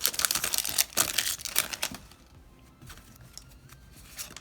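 Foil booster-pack wrapper of Pokémon trading cards crinkling and tearing open, dense crackling for about two seconds, then only faint rustles and clicks.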